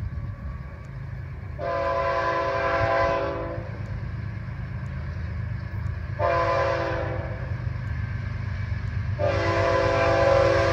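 Air horn of an approaching FEC GE ES44C4 freight locomotive sounding a long blast, a short blast, then another long blast that is still going at the end, the pattern of a grade-crossing warning. A steady low rumble of the oncoming train runs underneath.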